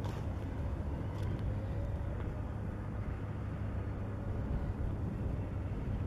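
Diesel engine of a Volvo wheel loader running steadily as the machine drives, with a continuous low hum.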